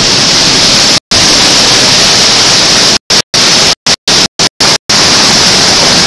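Hurricane wind and driving rain on a Hi-8 camcorder's microphone as a loud, steady hiss. The audio drops out to total silence for split seconds, once about a second in and several times between three and five seconds in.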